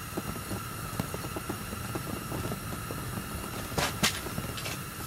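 Steady rushing background noise with a faint steady whine, scattered light ticks, and two sharp clicks close together about four seconds in.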